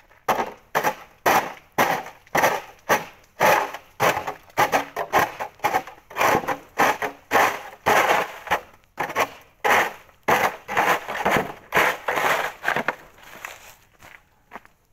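Plastic snow shovel scraping and chopping at wet snow on paving in quick, irregular strokes, about two a second. The wet snow has stuck to the ground and is hard to scrape off.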